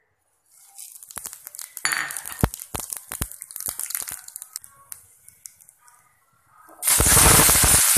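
Cumin seeds, dried red chillies and panch phoron crackling in hot oil in a kadai, a patter of sharp pops over a light hiss as the tempering fries. About seven seconds in a loud, steady sizzle starts as more food goes into the oil.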